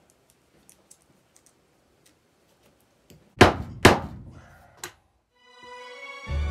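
Two heavy thunks about half a second apart, then a lighter one, followed by background music fading in near the end.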